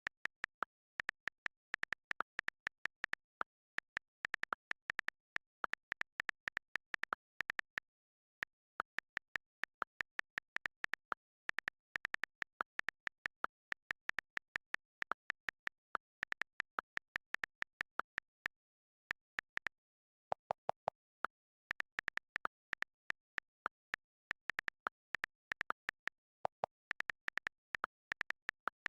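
Smartphone on-screen keyboard key-press clicks in quick, uneven runs of several taps a second as someone types fast, with short pauses. A few lower-pitched clicks sound around two-thirds of the way through and again near the end.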